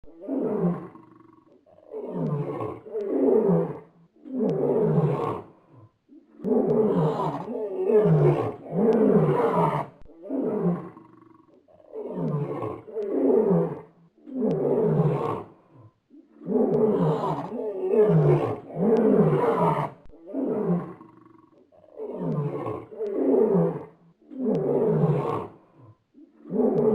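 Lion roaring in a long series of calls. Each call lasts about a second and falls in pitch, and they follow one another with short gaps.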